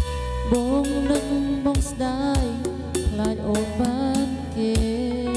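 A man singing a slow melody with vibrato into a handheld microphone over a backing track with drums, his voice amplified through a mixing console and speakers.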